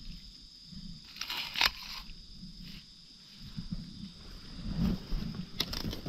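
Termite mushrooms being worked out of the forest floor by hand: rustling and scraping in leaf litter and soil, with two short louder scrapes about a second and a half in and near the end, and soft low thumps of handling. A steady high insect drone runs behind.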